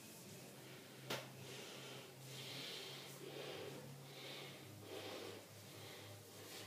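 Faint breathing, a soft puff roughly every second, over a low steady hum, with one sharp click about a second in.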